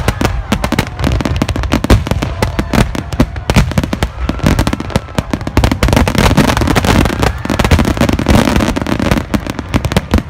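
A starmine fireworks barrage: shells bursting in rapid, overlapping succession, with many loud bangs and crackles every second and no let-up.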